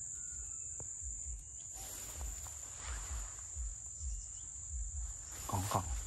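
Steady high-pitched drone of insects, with uneven low rumbling underneath. A short voice comes in near the end.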